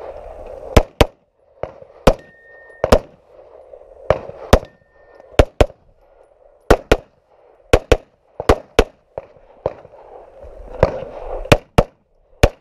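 Semi-automatic pistol shots, loud and sharp, fired mostly in quick pairs (double taps) with a second or so between pairs, as a shooter engages targets during a timed practical pistol stage.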